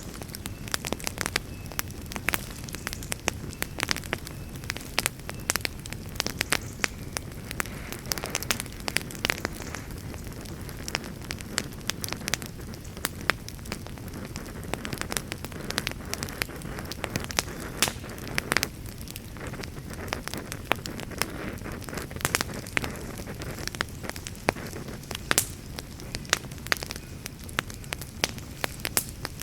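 Wood fire burning in a fireplace: a steady low rumble of flames with frequent sharp crackles and pops, several a second, some louder than others.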